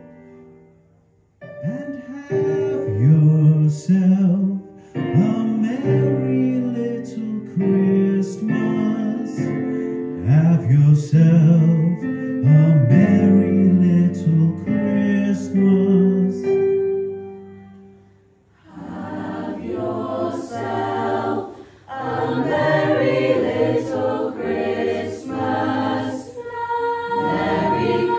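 Mixed choir singing in phrases, a low man's voice to the fore in the first part; after a short break about two-thirds of the way in the fuller choir comes in.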